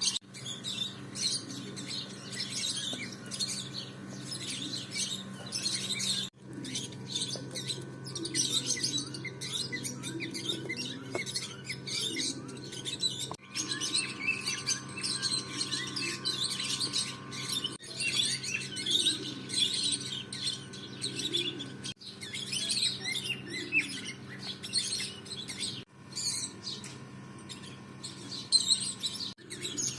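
Many small birds chirping densely and continuously over a steady low hum. The sound breaks off abruptly for an instant about six times.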